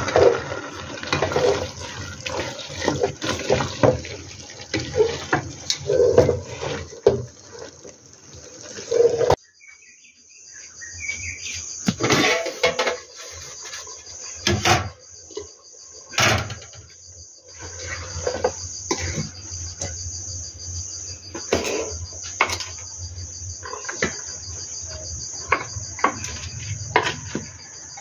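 A wooden spoon stirs shredded cabbage and potato cubes in an aluminium pot, scraping and clicking against the metal. After about nine seconds it cuts to crickets chirping steadily, with scattered sharp knocks.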